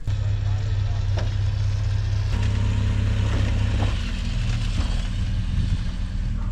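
A vehicle engine running steadily at idle, a low even hum whose tone shifts slightly about two and four seconds in.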